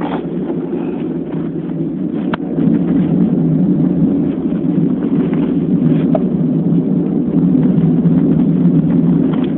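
Steady low rumble of wind buffeting a phone's microphone, growing a little louder about two and a half seconds in.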